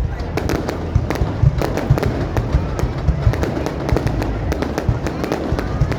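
Fireworks display going off: a dense, irregular run of bangs and crackles over a low rumble.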